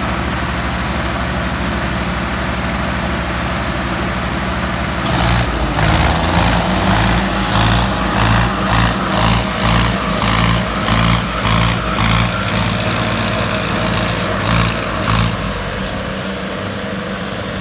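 Two diesel tractor engines, a Swaraj 855 and a Mahindra Arjun 605, running steadily, then pulling hard against each other under heavy load from about five seconds in. The sound swells and sags in a regular pulse, about one and a half times a second, and eases off near the end.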